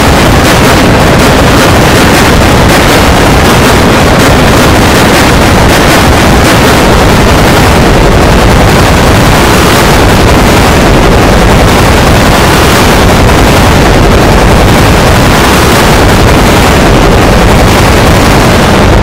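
Extremely loud, heavily clipped and distorted audio held at full level throughout: a dense harsh noise across all pitches with no recognisable tune, a logo soundtrack overdriven far past its limit as an effect.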